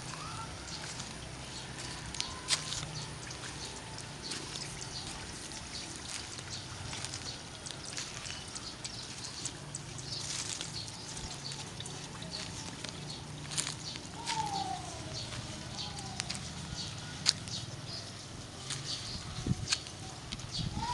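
Outdoor background with a steady low hum and scattered clicks and taps, and a few short falling animal calls, a pair about two-thirds of the way through and another near the end.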